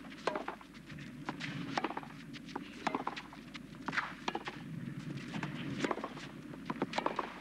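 Tennis court sound: irregular sharp knocks of tennis balls being struck and bounced, over a steady low crowd murmur.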